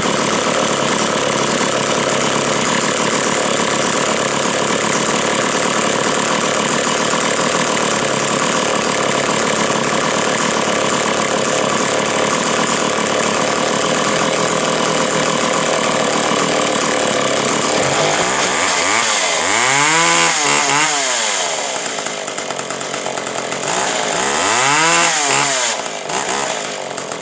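McCulloch Pro Mac 10-10 two-stroke chainsaw running steadily at high throttle for most of the time. Near the end it is revved up and back down twice.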